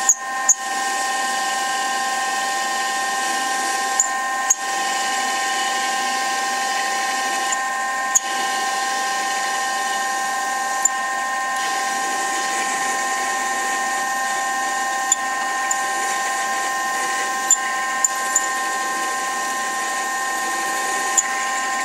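Denford Orac CNC lathe spindle turning at 770 rpm while a tailstock-mounted 29/64-inch twist drill cuts into a spinning EN16T steel cylinder blank: a steady high-pitched whine with occasional sharp clicks.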